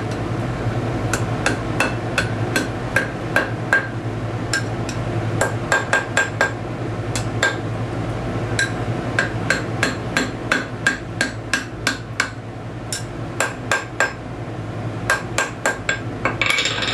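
Hand hammer striking red-hot steel bar stock on an anvil, bending it into a hook: clusters of quick blows, each with a short metallic ring from the anvil.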